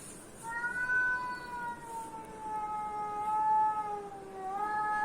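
A cat's long drawn-out yowl, starting about half a second in and held for nearly five seconds, slowly falling in pitch with a small lift near the end.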